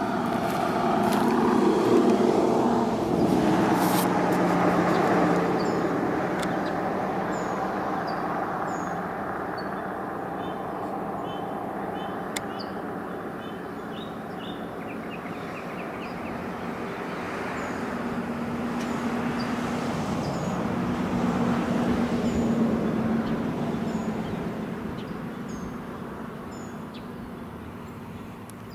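Outdoor ambience dominated by the steady rumble of passing road traffic. It swells and fades twice, with faint high bird chirps over it.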